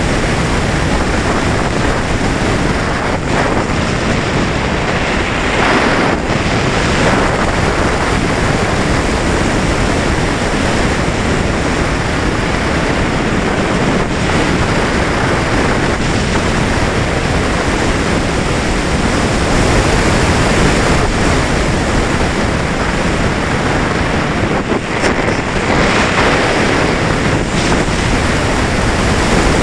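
Steady rush of air over a camera mounted on the wing of a radio-controlled sailplane gliding with its electric motor off. The rush swells briefly twice.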